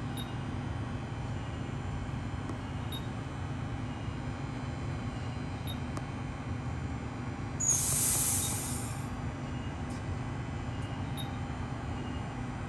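Steady low rumble of a passenger train, with a sudden burst of hissing air about eight seconds in that lasts a second and a half. Faint ticks repeat about every three seconds.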